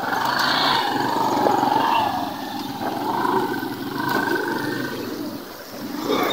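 Motorbike engine running with a wavering pitch that rises and falls, dropping quieter about five seconds in.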